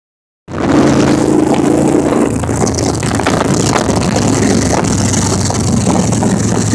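Touring motorcycle engines running at road speed, a steady drone that drops in pitch about two seconds in, with wind rushing over the microphone.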